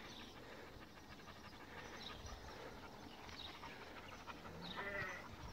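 Young Kangal dogs panting quietly, with a few faint high chirps and a brief pitched call near the end.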